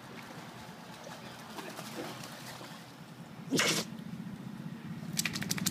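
A dog gives a single short, sharp snort about three and a half seconds in, followed by a steady low hum and a quick run of clicks near the end.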